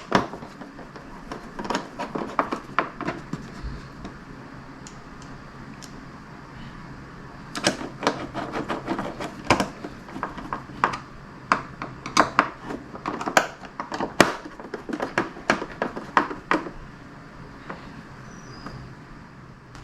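Bolts, washers and nuts clicking and knocking as they are fitted through a luggage rack into a plastic motorcycle trunk lid. The clicks come irregularly: a short cluster a couple of seconds in, then a longer run from about a third of the way in until near the end.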